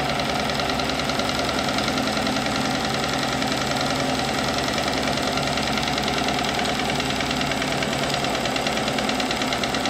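Homemade two-cylinder, double-acting steam engine running steadily at speed, a rapid, even clatter of beats. It is driving a small motor used as a generator under a light electrical load.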